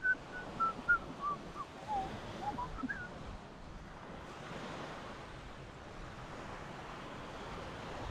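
Sea surf washing on the beach with wind buffeting the microphone. In the first three seconds a string of short whistled notes steps down in pitch, then back up.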